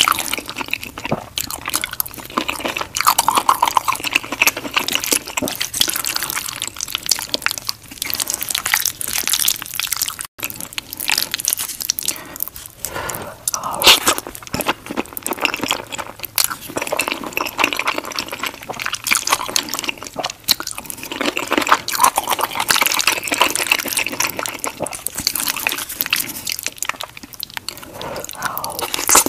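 Close-miked eating sounds of creamy white-sauce pasta with shrimp: wet chewing and slurping of sauced noodles, a dense run of small sticky, wet clicks. The sound breaks off for an instant about ten seconds in.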